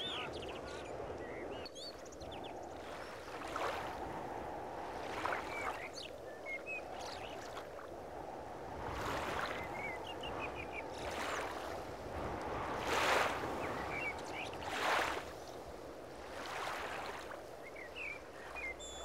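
Running-water ambience with swells every couple of seconds, and a few short bird chirps over it.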